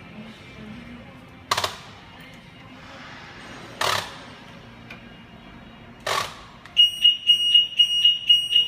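Retrofitted anti-theft car alarm siren going off near the end as a loud, high-pitched beep pulsing about four times a second, set off by the car being tilted on a jack. Before it come three short, sharp bursts of noise, a couple of seconds apart.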